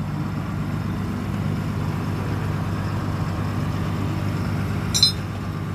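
Diesel engine of a Dynapac asphalt paver idling steadily, started for a final check after a conveyor chain replacement. A short click comes about five seconds in.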